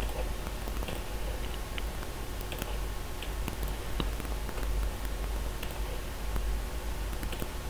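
Computer keyboard keys and mouse clicks, scattered and irregular, over a low steady hum.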